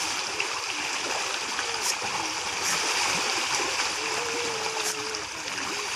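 A crowded school of fish splashing and thrashing at the water surface, a continuous churning with sharper splashes now and then.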